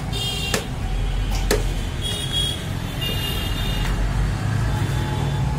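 A butcher's cleaver chopping goat meat on a wooden log block, with a few sharp chops about a second apart. Under them runs a steady low rumble of street traffic.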